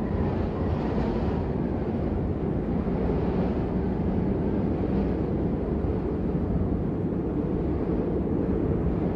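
Steady, low rumbling wind of a blizzard ambience recording, even in level with no gusts or breaks.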